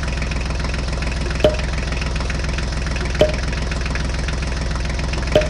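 Steady low tractor-style engine idling. Over it come three sharp clicks, about two seconds apart, as small clay toy bricks drop into a plastic toy trailer.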